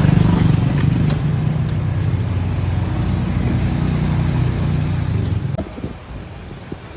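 Small motor-scooter engine idling steadily, then shut off about five and a half seconds in, followed by a few light clicks.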